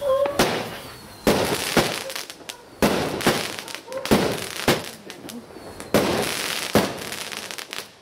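Backyard fireworks going off: a rapid series of about nine sharp bangs from rockets and aerial bursts, with the hiss of launching rockets and fizzing sparks between them.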